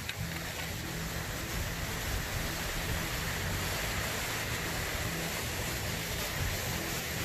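Stream water running through a rocky gulch: a steady, even rush.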